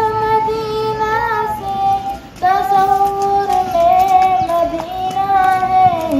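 A girl singing an Urdu naat solo, without instruments, holding long drawn-out notes that glide slowly in pitch, with a brief pause for breath about two seconds in.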